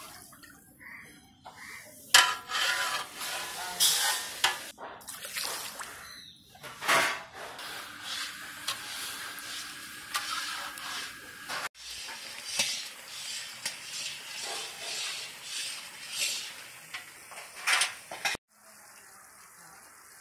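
Long metal ladle scraping and clinking against a metal wok as sugar and water are stirred into syrup, over a steady hiss of the heating, bubbling syrup. The sound drops off sharply near the end.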